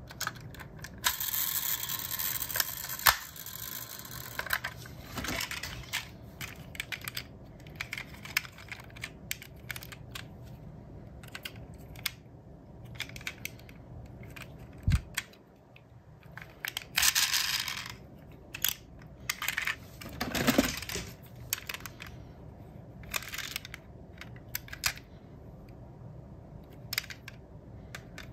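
Small clicks and taps of diecast metal toy cars handled in the fingers, their opening doors and hood clicking open and shut. Brief rustling twice, and a soft thud about halfway through.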